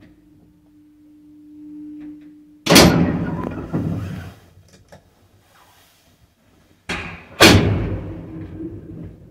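Old ZREMB passenger lift's doors: a steady hum that grows louder is cut off by a loud metal bang about three seconds in, a second bang follows a second later, and two more bangs come about seven seconds in as the hinged landing door and cabin door slam shut.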